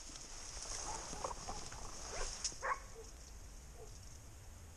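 Hunting dogs barking faintly, with several short, scattered barks.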